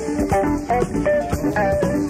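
A live jazz band playing: melodic guitar lines over drums and bass with a steady beat.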